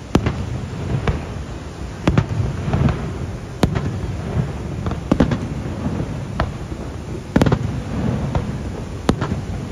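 Aerial fireworks shells bursting in a display: sharp bangs at irregular intervals, roughly one a second, over a steady low rumble.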